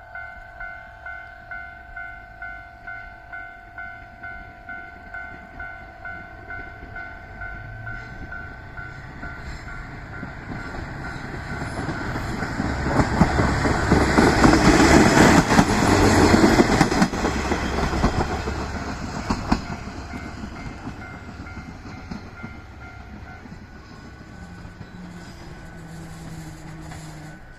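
Japanese level-crossing warning bell ringing about twice a second. A train then comes up and passes over the crossing: the rumble and clatter of its wheels builds, is loudest about halfway through, and fades away while the bell keeps ringing faintly.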